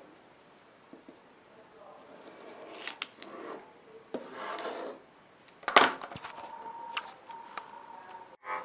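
Pencil scratching and rubbing across paper on a hard desk in short, irregular strokes, with a sharper knock about six seconds in.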